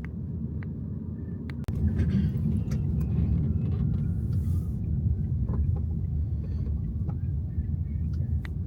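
Steady low rumble of a car on the move, with faint scattered clicks and ticks over it.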